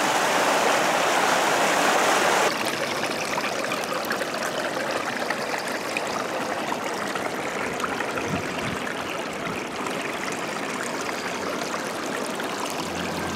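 Fast, shallow stream rushing over stones close by. About two and a half seconds in, the sound cuts to a lighter rush of water trickling and splashing down rocks.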